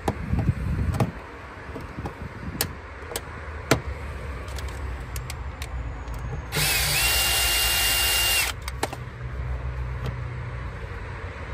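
Cordless drill/driver spinning for about two seconds, a steady whine starting and stopping abruptly, as it drives the screw of the terminal cover on a split air conditioner's outdoor unit. Light clicks of hand tools and cable handling come before and after.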